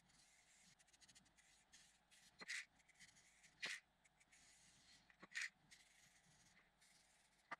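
Aerosol spray-paint can giving three short hisses, one to two seconds apart, as paint is spattered on.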